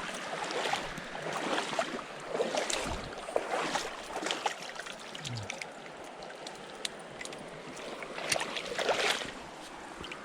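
Water splashing in irregular bursts over the steady rush of a mountain stream, busiest through the first half and again near the end: a hooked brown trout being played and brought in at the surface.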